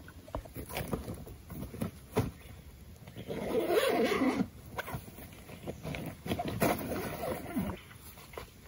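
Rustling and crinkling of camping gear as a backpack is unpacked and a tarp is pulled out and shaken, with scattered light clicks and knocks. A louder stretch of rustling comes about three and a half seconds in.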